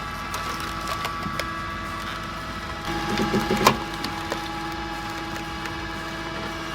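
Wood splitter running steadily while logs crack and splinter apart, with one sharp crack about three and a half seconds in.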